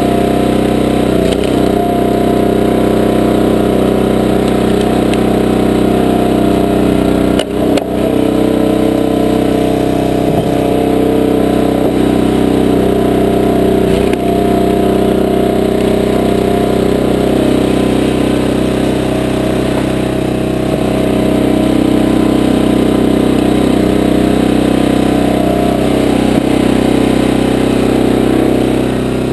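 Small gas engine of a Powerhorse 20-ton horizontal dual-split log splitter running steadily, driving its hydraulic pump, with its tone shifting a little over time and a brief dip about seven seconds in.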